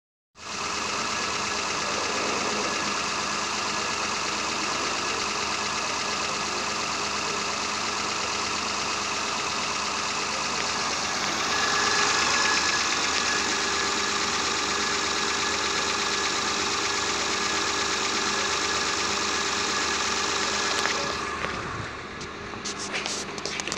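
1999 Mitsubishi Triton's 3.0-litre petrol V6 engine idling steadily, a little louder for a stretch about halfway through. Near the end it drops away and a few clicks and knocks are heard.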